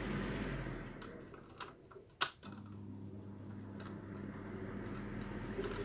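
Low steady electric hum that fades out about a second in and comes back about halfway through, with a few sharp clicks of hard plastic parts being handled in the gap.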